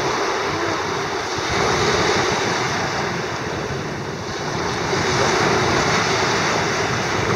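Small ocean waves breaking and washing up onto a sandy shore, a steady rushing wash that swells louder twice, with wind buffeting the microphone.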